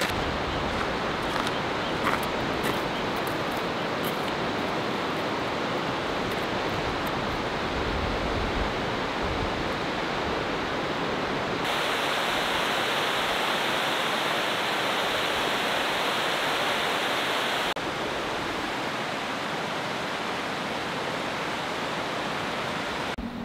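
Steady rush of flowing water from a rocky river running over rapids. It is louder and brighter for about six seconds in the middle, and a softer, even water hiss runs either side.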